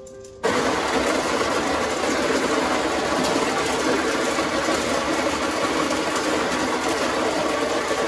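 WPM ZD-17W electric coffee grinder switching on sharply about half a second in, then running steadily and loudly as it grinds coffee beans.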